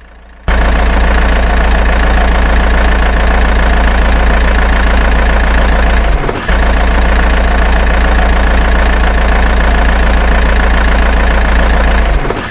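A heavy vehicle engine sound effect running steadily with a strong low-pitched drone, broken by a short gap just after halfway and stopping just before the end.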